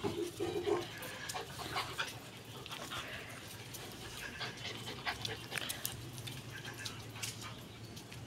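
Several dogs panting and moving about close by, with a short pitched whine right at the start and scattered light clicks.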